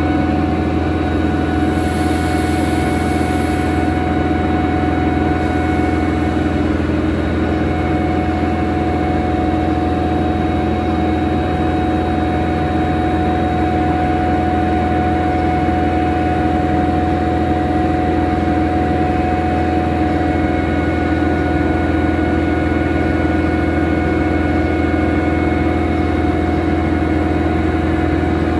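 Air compressor of the SNCF BB 7200-class electric locomotive BB 7350 running steadily, a continuous loud drone with several constant hum tones. A short hiss comes about two seconds in.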